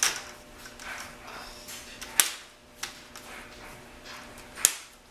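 Plastic screen bezel of a Toshiba Satellite C55-A5300 laptop being pried off, its clips snapping loose with four sharp plastic clicks a second or two apart, over faint handling noise.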